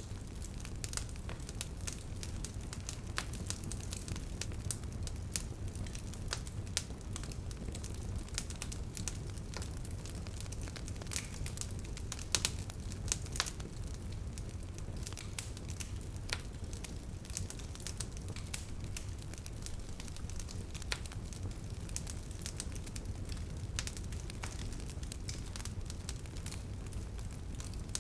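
Wood fire burning: a steady low rush of flame under frequent, irregular crackles, with a few louder cracks near the middle.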